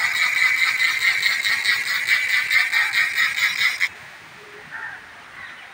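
Fishing reel's ratchet clicking rapidly and continuously while a hooked fish is played, then cutting off abruptly about four seconds in.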